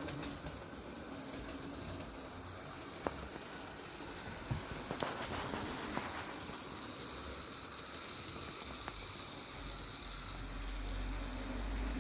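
OO-gauge Hornby Class 29 model diesel locomotive with a ring-field motor, running smoothly along the track: a steady quiet whir with a few light clicks, growing a little louder near the end.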